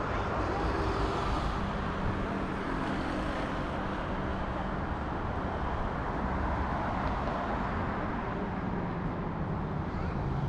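City street traffic: cars driving through an intersection, a steady mix of engine hum and tyre noise.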